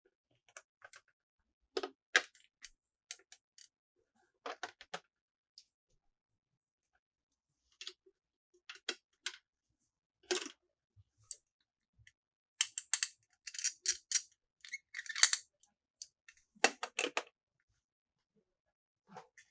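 Plastic toy pieces being handled and set down: scattered sharp clicks and taps, coming thicker for a few seconds past the middle.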